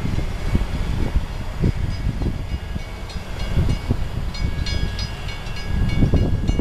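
Rail grinder train RGH10C running in the distance as it departs, a low rumble that rises and falls. Faint high ringing tones come in about halfway.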